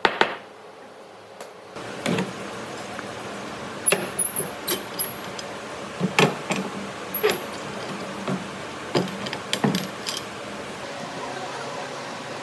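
Irregular series of short knocks and clinks, about a dozen, as hard objects are handled, over a steady low background noise.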